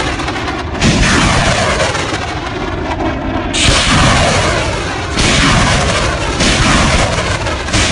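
Artillery rockets launching one after another from a multiple rocket launcher: a loud, continuous rushing blast, with a sudden new burst of noise as each rocket leaves, about every one to two seconds.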